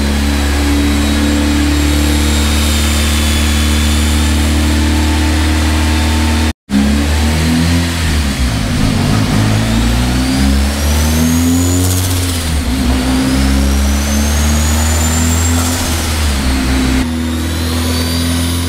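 Turbocharged Nissan SR20DET four-cylinder engine running under load on a chassis dyno. After a brief break in the sound, the engine revs climb in two rising sweeps during a dyno pull.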